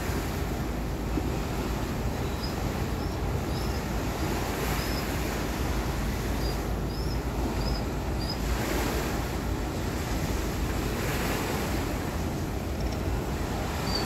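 Wind buffeting the microphone over sea water washing against the shore, swelling now and then. A run of short high chirps sounds a few seconds in.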